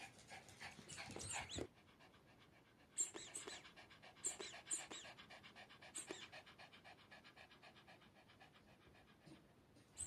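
Papillon dog panting rapidly and evenly after running a game of fetch, with a few brief sharp sounds in between.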